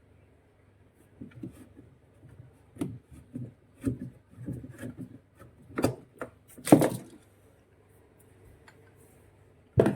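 Irregular knocks, clunks and scraping as tools and parts are handled while taking apart a twin-tub washing machine's spin dryer. The knocks come in a busy run through the middle, with two louder clunks a little past halfway and another at the very end.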